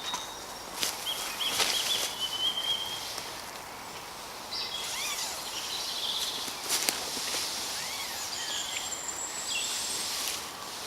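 Woodland birds singing: several overlapping chirps, trills and short rising-and-falling whistles, with a few sharp clicks over a faint steady outdoor background.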